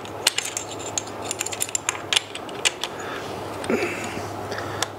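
Irregular small metal clicks and clinks of hand tools working the front axle nut of a pit bike, the nut being tightened with the kit's tube wrench turned by a screwdriver through it.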